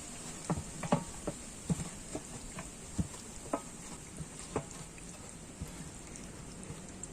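Chicken pieces being mixed by hand in a wet marinade of spice powders, lemon juice and curd: irregular soft squelches and clicks, most in the first four and a half seconds.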